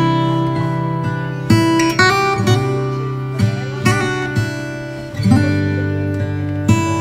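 Background music: acoustic guitar, strummed and picked, with a new chord or note struck every second or so.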